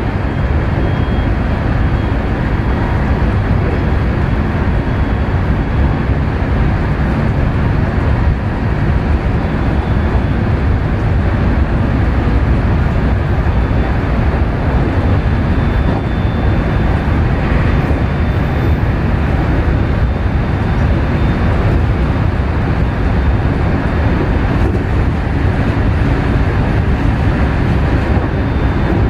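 Running noise of a JR West local electric train at speed, heard from the front of the train: a steady rumble of wheels on the rails and the running gear, with a faint thin whine that comes and goes.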